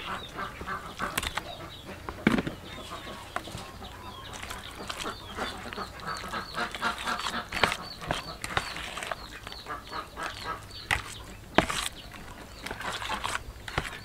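Metal spoon mixing batter and raw pork in a plastic bowl, with a few sharp knocks and scrapes. Birds chirp and call throughout.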